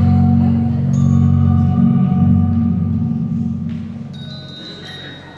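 Soundtrack music of an animated short film: sustained low notes with a few higher bell-like ringing tones, fading down over the last couple of seconds.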